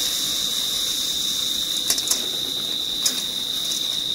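A steady high-pitched insect trill, with three light clicks about two and three seconds in.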